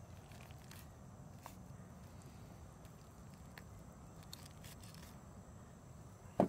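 Faint knife cutting and skin tearing as a cottontail rabbit's hide is worked off at the neck, over a low outdoor background. A single sharp click near the end.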